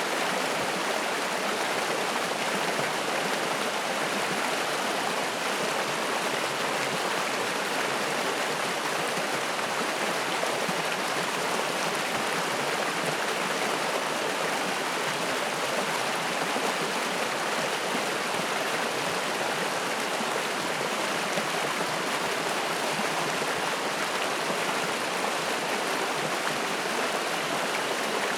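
Spring-fed mountain stream running over rocks: a steady, even rush of flowing water with no breaks.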